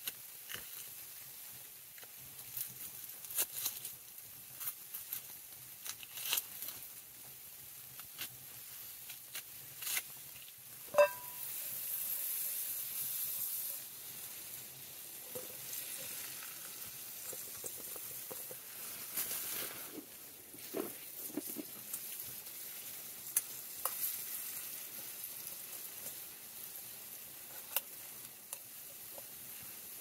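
Steak for fajitas sizzling and frying in a pan on a wood stove: a steady hiss with scattered pops and small clicks, now and then stirred. About eleven seconds in comes a sharp clink that rings briefly, and the sizzle grows louder for a few seconds after it.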